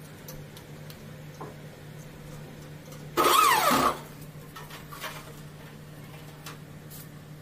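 A cordless drill runs briefly, about three seconds in, its motor whine dropping in pitch as it winds down, with a few light clicks of handling before and after.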